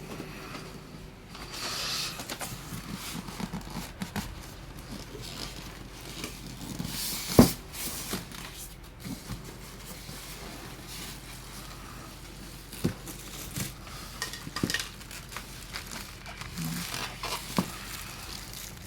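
Packaging being handled while a TV is unboxed: rustling of plastic and cardboard with scattered knocks and taps, one sharp knock about seven seconds in.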